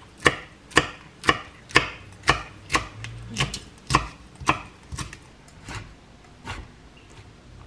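Chef's knife chopping green chili peppers and green onion on a wooden cutting board, sharp strikes about two a second. The strikes thin out and stop about six and a half seconds in.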